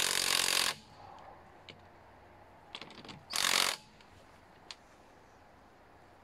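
Makita DTW190Z 18 V cordless impact wrench hammering on a car's wheel bolt. It stops about 0.7 s in, then gives one short burst about three and a half seconds in, with a few small clicks between.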